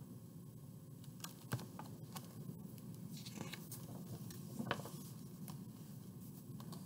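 Paper pages of a large picture book being handled and turned, with faint rustling and a few light clicks.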